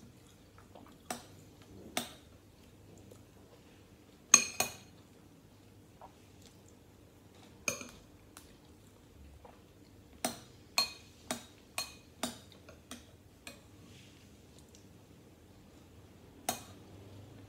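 Metal spoon clinking against a ceramic cereal bowl as it scoops, in scattered light strikes: a loud double clink about four seconds in, a quick run of about six clinks past the middle, and one more near the end.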